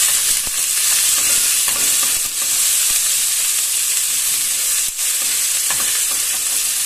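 Chopped onions frying in oil in a nonstick pot, a steady high sizzle, while a spatula stirs and scrapes through them.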